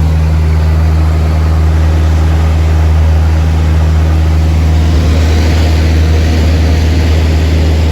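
Cessna 152's four-cylinder Lycoming engine and propeller running at a steady, loud drone: a constant low hum under a rushing noise, with no change in pitch.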